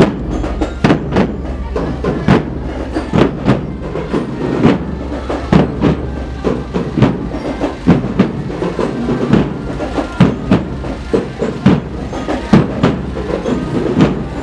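Steady low engine rumble from a decorated passenger road train, with loud sharp drum strokes from a marching drum band at uneven intervals, roughly twice a second.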